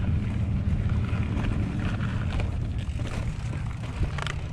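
Santa Cruz Blur TR full-suspension mountain bike riding over a rocky dirt track: a steady low rumble of tyres on dirt and wind on the microphone, with scattered small clicks and rattles from gravel and the bike.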